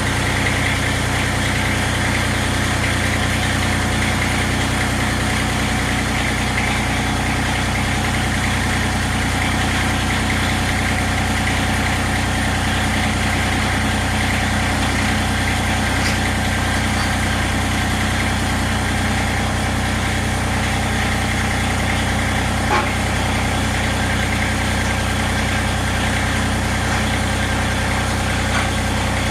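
Tractor engine idling steadily, with one short knock about two thirds of the way through.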